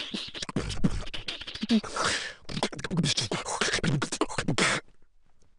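Beatboxing: a fast run of vocal clicks, hissed hi-hat and snare sounds and deep kick-drum thumps, with a few short hummed notes, that stops abruptly near the end.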